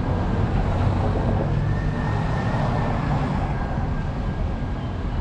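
City road traffic going by close at hand, a steady rumble of engines and tyres, with a faint high whine near the middle.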